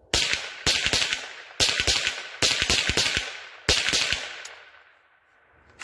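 Rossi RS22 semi-automatic .22 LR rifle firing a quick string of about ten shots, irregularly spaced at two to three a second, with an echo fading after the last shot. The rifle cycles every round without a malfunction.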